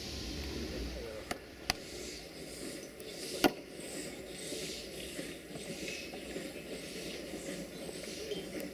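Narrow-gauge steam locomotive 762.209 venting steam with a steady hiss, with a few sharp knocks, the loudest about three and a half seconds in.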